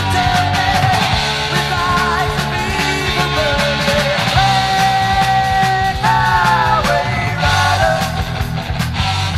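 1980s British heavy metal (NWOBHM) band recording: electric guitars, bass and drums, with a lead line of long held notes that bend and waver over the steady band.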